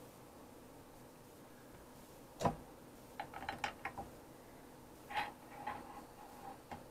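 Metal clinks and knocks from handling a clutch pedal assembly's steel pivot shaft and sliding it into the pedal bracket. There is a sharp knock about two and a half seconds in and a quick run of small clicks just after. About five seconds in comes another knock with a brief ring, then a last click near the end.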